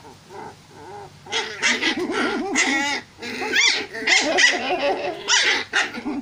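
Two puppies squabbling: a dense run of high-pitched yaps and growls that starts about a second in.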